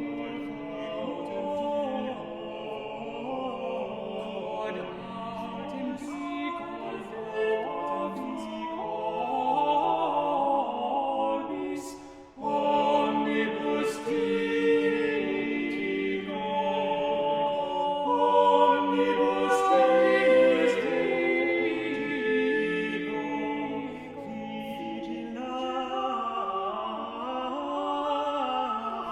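Small male vocal ensemble singing a cappella in close harmony. About twelve seconds in there is a brief break, after which the singing comes back louder.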